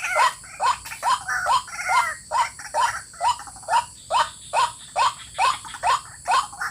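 White-breasted waterhen calling: a steady run of short rising croaking notes, about two a second.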